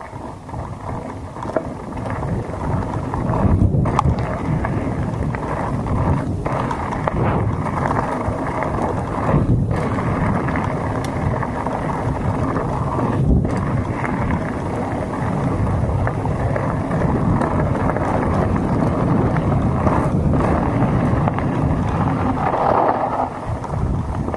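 Mountain bike rolling down a loose gravel track: tyre noise on the gravel under heavy wind buffeting on the rider's camera microphone, growing louder over the first few seconds and then holding steady.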